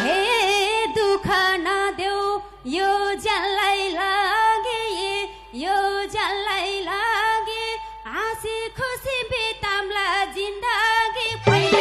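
A woman singing a Nepali lok dohori folk verse into a microphone, unaccompanied, her melody bending up and down in pitch. The band's instruments come back in near the end.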